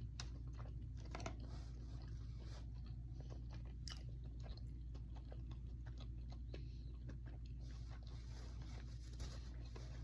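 A person chewing and biting crunchy salad: many small crunches and wet mouth clicks, over a steady low hum.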